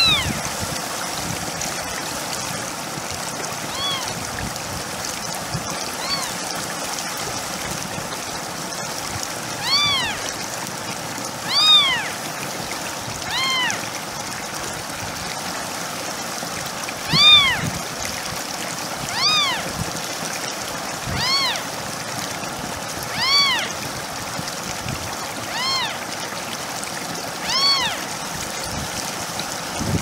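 A kitten meowing over and over, about a dozen short high meows a second or two apart, each rising and then falling in pitch, over the steady trickle of a pet water fountain.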